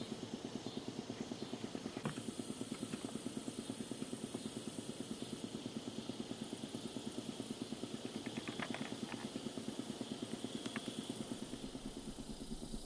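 An engine running steadily at idle, a low, evenly and rapidly pulsing drone, with a few faint clicks scattered through it.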